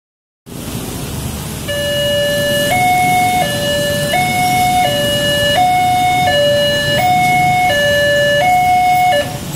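Level crossing's electronic two-tone siren played through a loudspeaker, switching between a low and a high note about every 0.7 seconds; it starts a couple of seconds in and stops just before the end. Steady motorbike and car traffic noise underneath.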